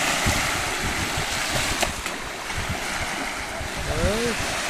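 Small sea waves washing up on a sandy beach, with wind rumbling on the microphone. A short voice sound rises and falls about four seconds in.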